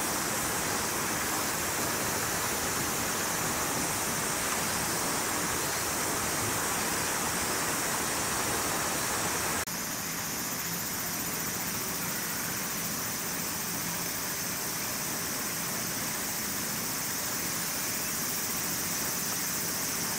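Steady, even outdoor hiss with no distinct events, its character shifting slightly at a cut about ten seconds in.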